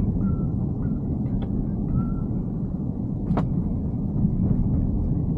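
Steady low rumble of road and tyre noise from a Tesla Cybertruck driving, with no engine note since it is electric. A few faint short tones sound in the first two seconds, and a single sharp click comes about three seconds in.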